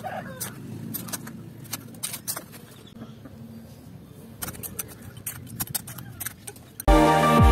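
Small metal hand tool scraping and digging into dry sandy soil, with scattered gritty clicks and scrapes. Electronic music starts abruptly near the end.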